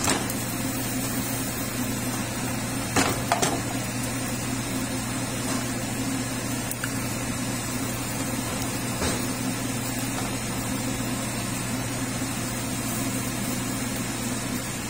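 A steady low hum with a hiss over it, and a spatula tapping and scraping on a frying pan a few times, with two sharp taps close together about three seconds in.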